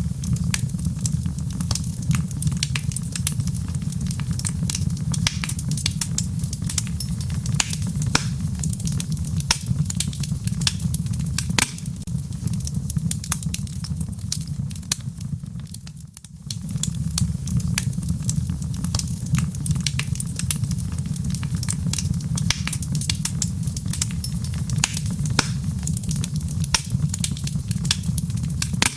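Wood fire crackling in a fireplace, many small pops and snaps over a steady low rumble. The sound dips briefly about halfway through, then resumes.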